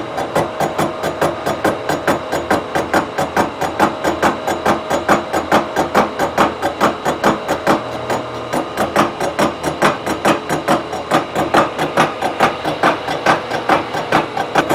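Indexable-insert face mill cutting across a cast-iron exhaust manifold flange: a rapid, even chatter as the inserts strike the metal one after another, over a faint steady hum from the milling machine.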